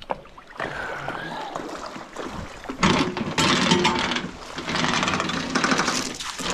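Small boat's outboard motor running, growing much louder about three seconds in with a fast, even pulsing.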